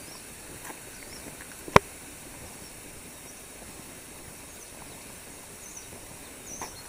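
Outdoor ambience of a steady high insect hum with a few short faint chirps, while a person walks on a paved road. One sharp click stands out about two seconds in.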